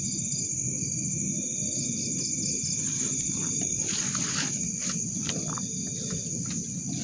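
Night insects, probably crickets, trilling in a chorus of several steady high-pitched tones, over a low rumbling noise, with a few soft clicks in the second half.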